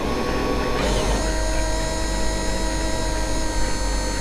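RC model ship's drive motors whining steadily, with the pitch shifting about a second in and then holding, over the low rumble of wind buffeting the onboard microphone.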